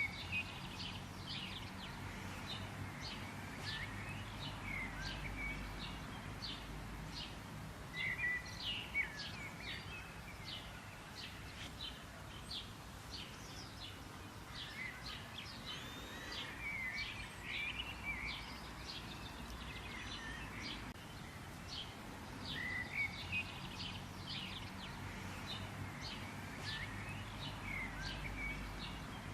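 Several small songbirds chirping and twittering continuously, many quick high chirps with short whistled notes in between, over a low steady outdoor rumble.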